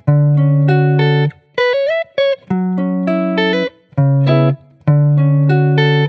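A sampled four-bar guitar loop playing back: plucked chords and single notes in short phrases with brief gaps between them, and a note that slides up in pitch about two seconds in.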